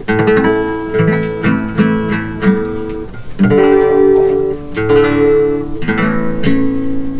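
Acoustic guitar being strummed and picked: a run of chords, each struck and left to ring.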